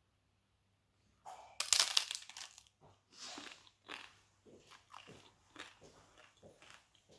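Biting into a crunchy tostada of toasted tortilla: a loud crunch about a second in, then several seconds of smaller crunches as it is chewed.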